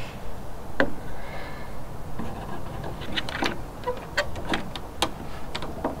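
Irregular sharp clicks and light knocks of metal gate-latch hardware being handled and fitted against a wooden gate, about nine in all, bunched toward the middle and end.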